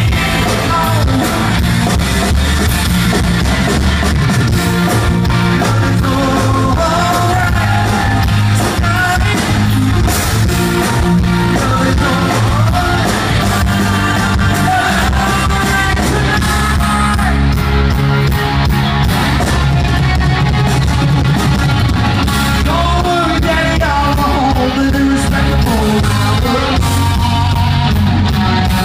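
Live rock band playing loudly, with electric guitar, bass and drums under a male lead vocal.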